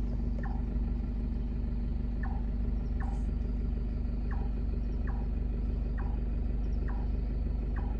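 Car engine idling steadily, with an animal's short falling call repeated about once a second over it.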